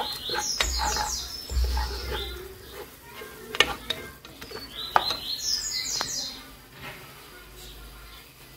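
A wooden spoon stirring chopped onion, tomato and peppers frying in oil in a pot, with a light sizzle and several sharp knocks of the spoon against the pot. High chirps come twice, near the start and again about five seconds in.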